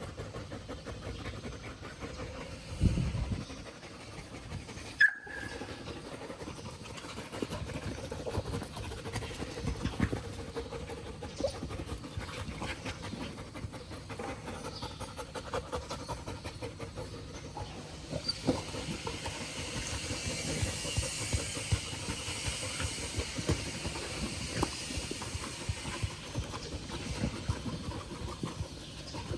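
Dog panting, with a heavy thump about three seconds in and a sharp click about five seconds in.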